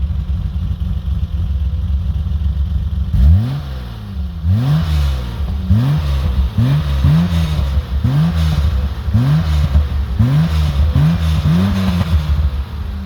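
BMW E30 320i's 2.0-litre straight-six, fitted with sharper camshafts, idling and then revved in about ten quick throttle blips from about three seconds in, the revs rising and falling back each time. Its slightly uneven idle is, in the owner's words, due to the camshafts.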